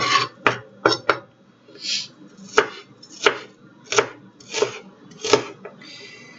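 Kitchen knife chopping red onion on a cutting board: sharp knocks of the blade on the board, a quick run of four in the first second, then a steadier one about every two-thirds of a second.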